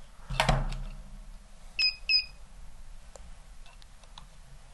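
Two short, high electronic beeps about a third of a second apart from a Lyman digital trigger pull gauge as it is readied for another trigger-pull reading. A brief rustle of handling comes near the start, and a few faint clicks follow later.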